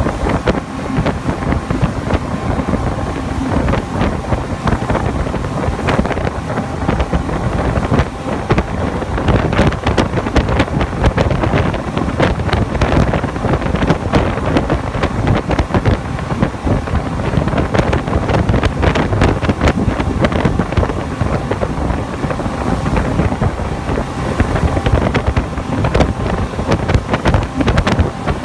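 Speedboat with outboard motors running fast: a steady engine drone under the rushing hiss of the churned wake, with heavy, irregular wind buffeting on the microphone.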